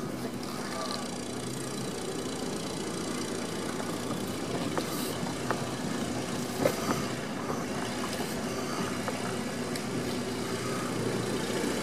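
A motor vehicle's engine running steadily at low speed, with a few light clicks or knocks around the middle.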